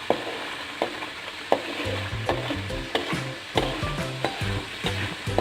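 Blended chilli sambal paste sizzling in hot oil as it is stirred, with a sharp tap of the utensil against the pan about every 0.7 seconds. The paste has cooked down until the oil is starting to separate out, the sign that the sambal is almost done.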